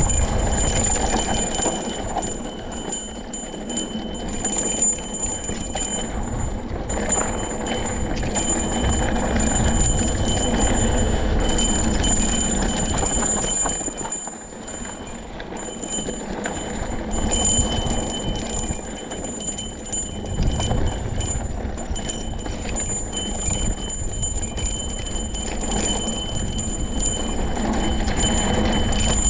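Enduro mountain bike descending a loose, rocky dirt singletrack: tyres rolling and crunching over dirt and stones, with wind rumbling on the microphone. A steady high-pitched ringing tick runs along with it, and the sound eases briefly about halfway through.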